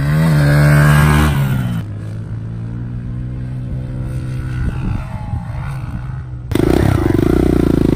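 Dirt bike engine revving hard as the rider takes a jump, then running at a steadier, lower note as the bike rides away. Near the end, a louder, close engine buzz cuts in abruptly.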